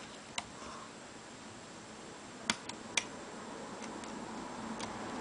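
Small sharp metal clicks from a pick and tension wrench working in an old Mul-T-Lock interactive filing cabinet lock during single-pin picking: one click just after the start, two louder clicks about half a second apart midway, then a few faint ones.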